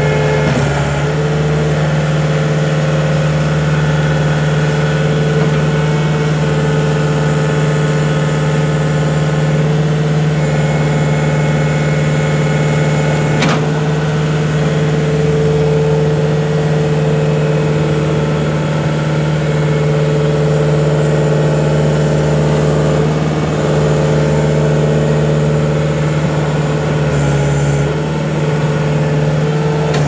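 2010 Bobcat S250 skid steer's turbo-diesel engine running steadily at working throttle while the machine drives and its loader arms are lowered, a constant low hum with steady higher tones over it.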